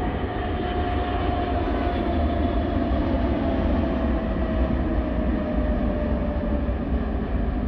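Four-engine Airbus A380 jet airliner flying low over the runway as it lands: a steady engine roar with a deep rumble and a whining tone that slowly falls in pitch as it passes.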